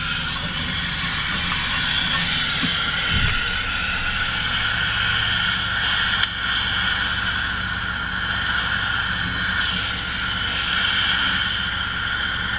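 A gas torch burning against the steel rings and chain of a scallop dredge, giving a steady hiss over a low hum, with one sharp click a little past halfway.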